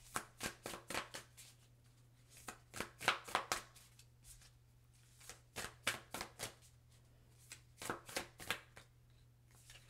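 A deck of oracle cards being shuffled by hand: four short runs of quick card flicks and taps, each lasting about a second, with pauses between them.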